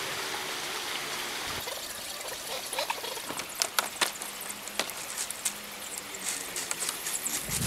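Water pouring with a steady hiss for about the first second and a half, then scattered small clicks and taps.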